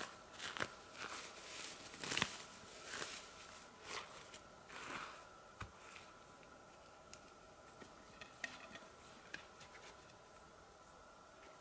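Footsteps, a soft step about once a second, that stop about halfway through; after that only faint scattered ticks.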